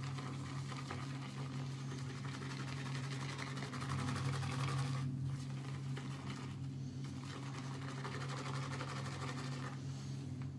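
Shaving brush (a RazoRock Big Bruce synthetic) whipping soap into lather in a shaving bowl. It makes a fast, even swishing that pauses briefly a few times, with the lather building up well. A steady low hum runs underneath.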